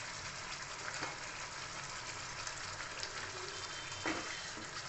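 Thick masala gravy bubbling and sizzling in oil in a kadhai on a gas flame, with a few small pops about a second in and near the end. The oil has separated from the masala, the sign that it is cooked through.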